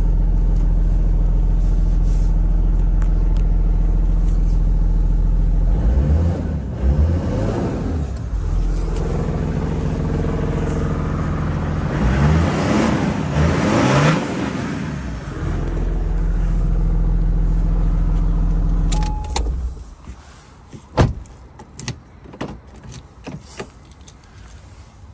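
Toyota Land Cruiser 80's 4.2-litre 24-valve turbo-diesel straight-six idling, first heard from inside the cab, then from outside beside the vehicle, swelling and fading as the microphone moves. About three-quarters of the way through the engine sound drops away suddenly, and a few sharp clicks and knocks follow.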